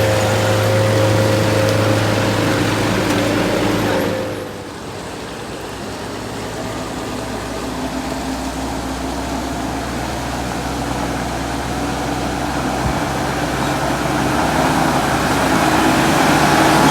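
A vehicle engine running with a steady pitched hum. About four seconds in it drops away sharply, then slowly builds louder again, its tone rising slightly near the end.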